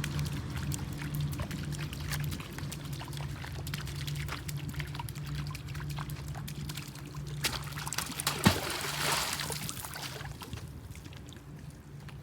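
Water trickling and dribbling, with a sharp splash and a short rush of water about eight and a half seconds in, over a steady low hum.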